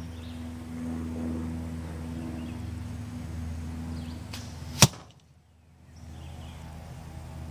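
A carbon arrow striking a duct-tape-wrapped foam block target with one sharp smack about five seconds in, over a steady low hum; the hum drops out for about a second right after the hit.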